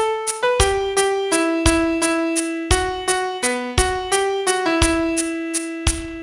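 Piano playing a slow single-note melody over a rhythm click marking 3/8 time: a deeper thump on each bar's first beat about once a second, with lighter ticks on the beats between.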